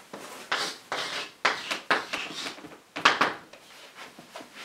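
Chalk writing on a blackboard: an irregular run of short scratches and taps, several a second, with a brief pause about three seconds in.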